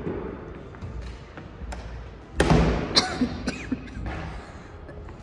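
Footsteps thudding on a hollow wooden ramp, with a few sharp knocks that ring on briefly, the loudest about two and a half seconds in and another near the end.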